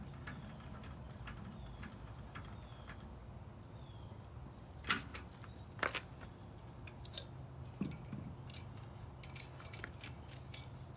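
Scattered metallic clicks and clinks from the jack and its handle as the truck is jacked back up, with the two loudest about five and six seconds in, over a steady low hum.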